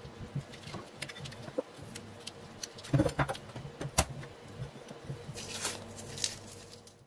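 Handling noises from a metal telephone bell-set cover on a wooden table: light rustles and clicks, then sharp knocks about three to four seconds in as the cover is set down on the wood, and a brief rustle near the end.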